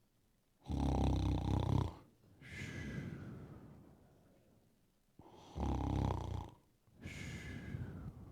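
Loud snoring, two full snores: each a rattling in-breath followed by a long out-breath with a thin falling whistle.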